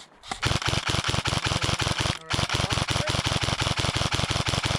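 Airsoft gun firing on full auto: rapid, evenly spaced shots in long strings, with a short break just after the start and another a little before halfway.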